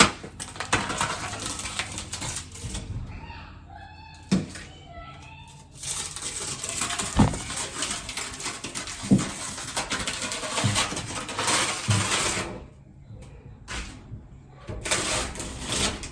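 Old peeling wallpaper being torn and scraped off plaster walls: long stretches of rasping tearing noise with a few sharp knocks. An animal whines briefly a few seconds in.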